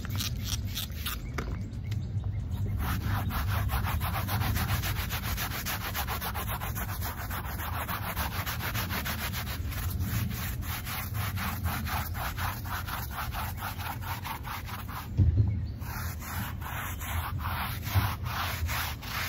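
Handheld bristle brush scrubbing a carpeted car floor mat wet with spray cleaner, in quick, even back-and-forth strokes. A brief pause before the scrubbing settles in about three seconds in, and a short thump about three-quarters of the way through.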